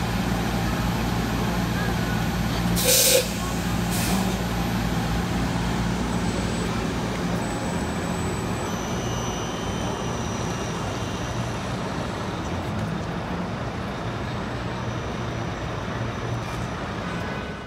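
Compressed-air hiss from a New Flyer XE40 battery-electric bus's air brakes, a loud hiss about three seconds in and a shorter one a second later, as the bus pulls away from the stop. Then steady city traffic noise, with a few faint high whines.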